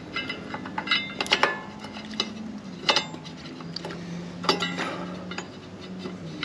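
Several sharp metallic clinks with short ringing as steel-backed brake pads are handled and fitted into a 2007 Harley-Davidson Sportster's rear brake caliper.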